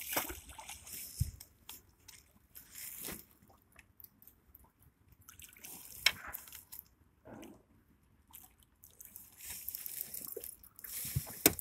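Water splashing and sloshing in short irregular bursts as a hooked catfish rolls at the surface beside the boat, with a couple of sharp knocks, one about midway and one near the end.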